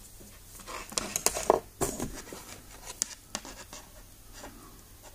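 Handling noise from a multimeter test probe and a thin insulated wire being picked up and fingered: a cluster of small clicks and rustles starting about a second in and dying away after about three seconds.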